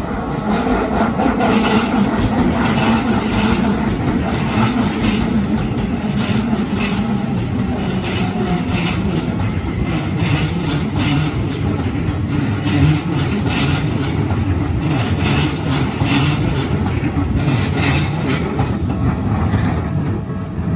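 A Keikyu Line electric train passing close by over the level crossing: a steady rumble of wheels on rail with repeated clacks as the wheels run over rail joints.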